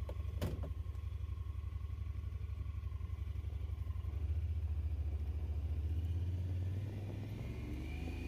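Honda Pioneer 1000-5 side-by-side's parallel-twin engine running with a steady low pulse, getting louder for a couple of seconds from about four seconds in and then settling back. A sharp click comes about half a second in.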